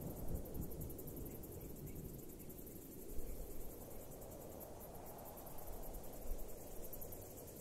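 Faint low rumble and steady hiss of background noise, with no distinct event.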